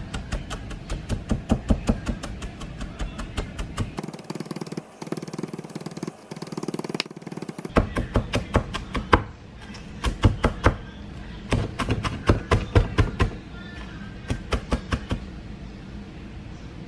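Large knife chopping shredded cabbage on a wooden cutting board: a fast run of blade strikes at about five a second, a pause of a few seconds, then several shorter runs of chopping that stop near the end.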